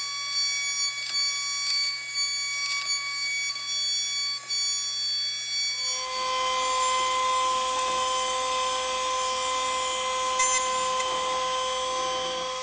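CNC router spindle whining steadily as its end mill cuts aluminum plate. About six seconds in, the set of tones changes and the cutting gets somewhat louder, holding steady after that.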